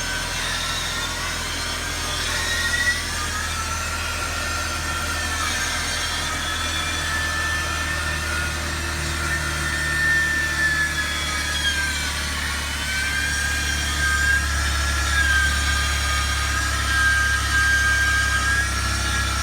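Abnormal noise from a Mercedes-Benz C200's engine bay: a steady low hum under a high, wavering whine that bends in pitch and dips about twelve seconds in. The noise comes from the car's failing air pump, which needed replacing.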